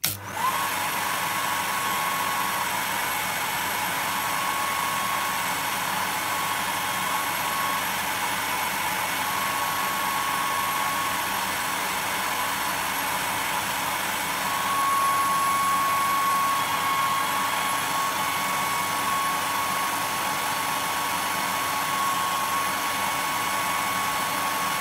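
Hair dryer switched on and running at full power as a test load drawing about 10.5 A through a 6 A circuit breaker: a steady rushing whir with a high whine, a little louder from about halfway through.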